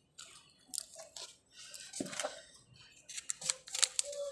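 Soil-covered fingers working a cocopeat and compost mix in a thin plastic seedling tray, with scattered rustles, scrapes and light plastic crackles that get busier near the end.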